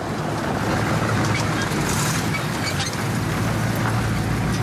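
A big 1950s American car's engine running as the car rolls up and pulls in, a low steady hum that grows stronger about three and a half seconds in, over a steady hiss.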